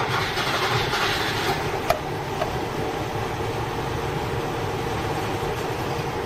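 Four-cylinder engine of a 1981 Toyota Corona RT132 running unevenly at low revs, heard from inside the cabin with the air conditioning on. It is misfiring because the ignition condenser has failed and the points are sparking instead of the plugs.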